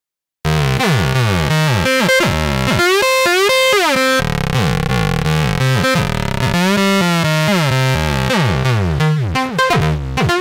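A squeaky, whiny 303-style synth sequence from FL Studio's 3xOsc saw-wave synth. It starts about half a second in, and its notes slide up and down in pitch. Near the end the notes turn short and choppy as the filter envelope is reshaped.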